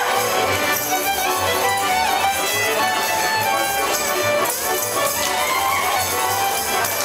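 Slovak folk dance music led by fiddle, with a steady low bass beat underneath.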